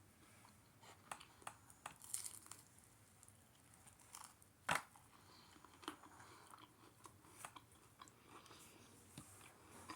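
A person chewing food quietly, with scattered small crunches and clicks and one sharper click about halfway through.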